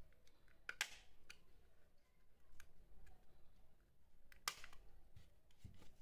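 Plastic case of a TV remote control being pried apart along its seam with a small flat screwdriver: faint scraping and scattered light clicks, with two sharper plastic snaps, one about a second in and one about four and a half seconds in.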